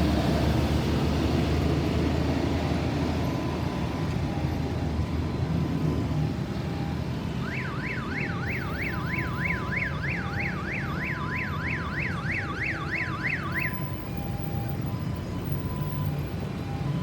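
Ambulance's electronic siren in a fast yelp, rising and falling about three times a second, starting about seven seconds in and stopping about six seconds later. Steady road traffic noise runs underneath.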